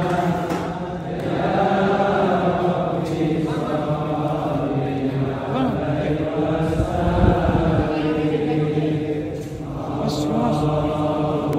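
A group of voices chanting an Islamic devotional chant in unison, in long held phrases with short breaks between them. There is a low thump about seven seconds in.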